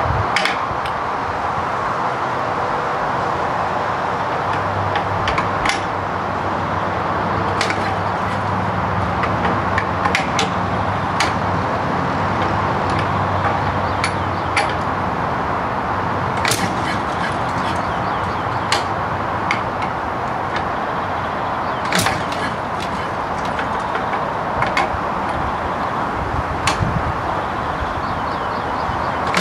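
Irregular metallic clicks and clanks from the hand-crank and controls of a Ransomes MG5 crawler's petrol engine as it is worked by hand for a cold start, the engine not yet running. A steady hiss sits under the clicks.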